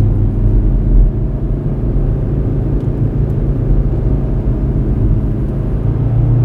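Kia Picanto 1.1 driving, heard from inside the cabin: the small four-cylinder petrol engine running under a steady low road rumble. A low engine tone fades right at the start, and a slightly higher one comes in near the end.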